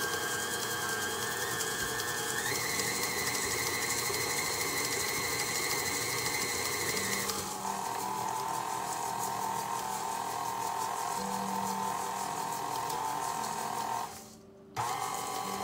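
KitchenAid Artisan stand mixer running as it mixes a crumble dough. Its motor whine steps up in pitch about two and a half seconds in as the speed is raised, and drops lower about seven and a half seconds in. It cuts out near the end, then runs again briefly.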